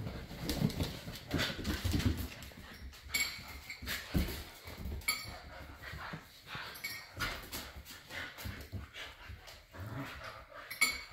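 Siberian huskies play-fighting, vocalizing with whines and short play noises, with sharp clicks and knocks scattered throughout.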